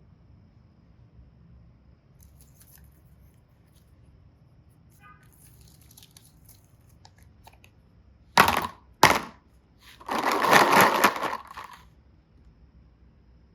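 Handling noises from small boxes and their contents. Faint crinkling is followed by two sharp cracks about half a second apart, then about two seconds of crackling and rustling.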